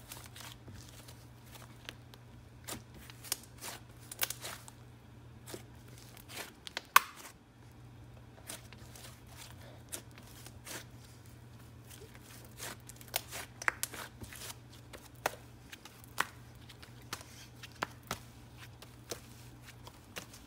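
Brown glue slime mixed with soft clay being stretched, folded and pressed by hand, giving irregular sticky clicks, pops and tearing sounds. The loudest pop comes about seven seconds in. A steady low hum runs underneath.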